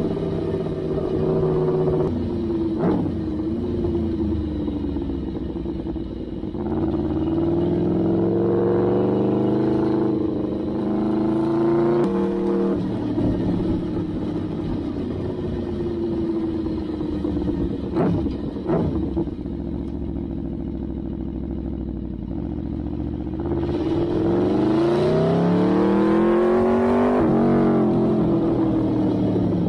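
Aprilia Tuono V4 1000's V4 engine through an open Arrow GP race exhaust, recorded from on the bike while riding. It pulls up through the gears with rising pitch and then eases off, with a few short sharp cracks on and off the throttle. The hardest, loudest pull comes about two thirds of the way in and falls away near the end.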